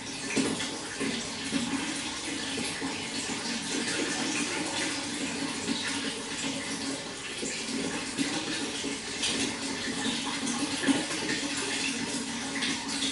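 Running water splashing and burbling steadily, with a few slightly louder splashes now and then.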